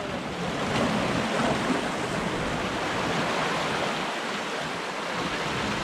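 Ocean surf: a steady rush of breaking waves and washing water.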